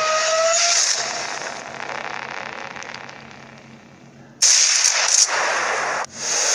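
Noise-type editing sound effects: a hiss that fades away over the first few seconds, then a sudden loud burst of noise lasting about a second and a half, and another starting near the end.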